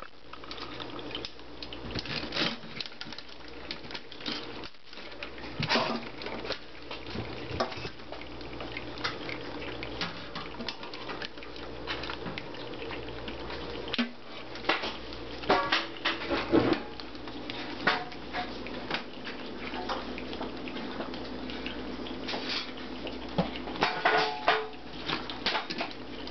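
Crabs' legs and claws clicking and scraping against a sink: irregular sharp taps, some louder clusters, over a steady low background hum.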